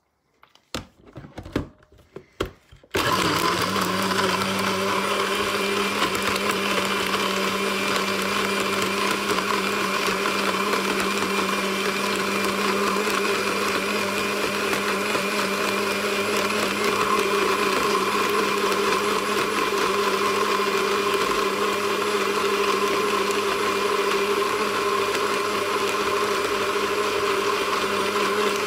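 A few knocks as the blender is set up, then about three seconds in a countertop blender starts and runs steadily at full speed, blending a smoothie.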